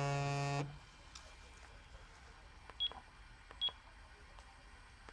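Sagem my101X mobile phone: a buzzy, horn-like low tone from its speaker cuts off suddenly within the first second. Then come two short high key beeps about a second apart, each with a button click, as the phone's keys are pressed.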